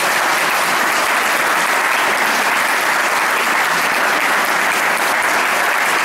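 Audience applauding, a dense, steady clapping at the close of a speech.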